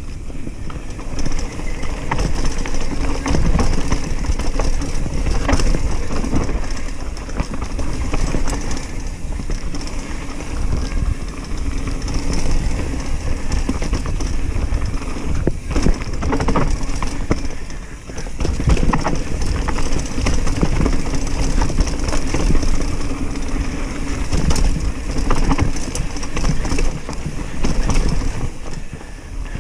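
Commencal Meta Cromoly steel hardtail mountain bike riding fast down a dirt forest trail: a steady rumble of tyres over the ground and wind on the microphone, with frequent rattles, clicks and knocks from the bike over roots and rocks.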